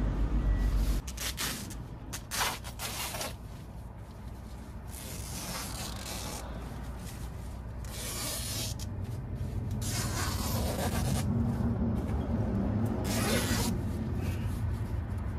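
Nylon tent fabric and sleeping bag rustling as a camper settles in and zips the tent door shut from inside: several separate scratchy bursts, over a steady low rumble.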